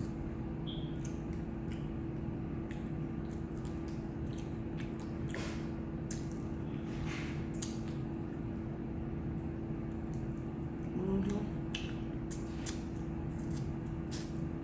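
Close-up eating sounds: scattered wet mouth clicks and chewing from a person eating, over a steady low electrical hum.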